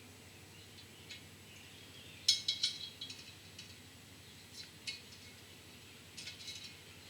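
Small metal parts clicking and clinking while a valve keeper is worked into a valve spring retainer on a cylinder head. The clicks come in three short clusters, about two seconds apart.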